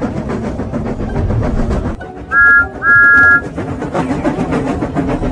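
Two blasts of a two-note train whistle, a short one and then a slightly longer one, about halfway through. A continuous rushing, rattling noise runs underneath.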